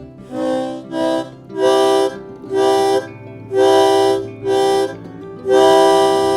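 Harmonica playing a slow phrase of about seven held chords, each sounded for around half a second with short breaks between.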